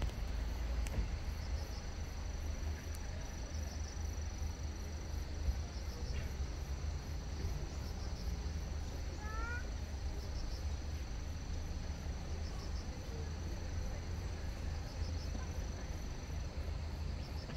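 Outdoor ambience: a steady high-pitched insect drone with faint pulsed chirping, over a low rumble. A short run of quick rising chirps about nine seconds in.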